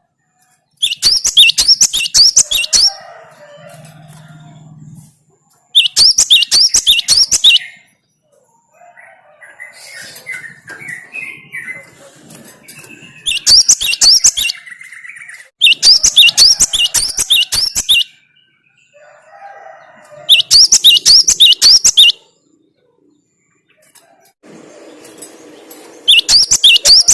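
Cinereous tit (gelatik batu) singing: loud two-second bouts of a quick, repeated high whistled phrase, about three notes a second, recurring every few seconds, with softer, lower chattering calls in between.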